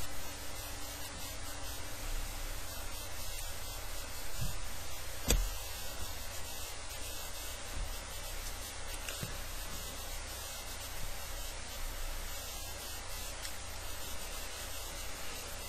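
Steady hiss of recording noise with no speech, broken by a soft thump about five seconds in and a few fainter taps.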